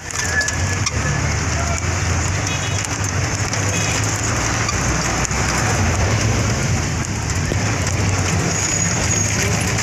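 Steady rushing noise from a moving bus: a low engine and road rumble with wind and tyre hiss over it.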